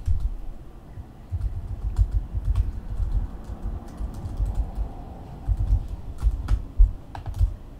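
Typing on a computer keyboard: an irregular run of keystroke clicks with dull thumps.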